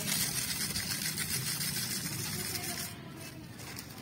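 Paper and plastic rustling and crinkling as a paper cone of grain bait is twisted shut and handled, a dense hissy rustle that eases off near the end.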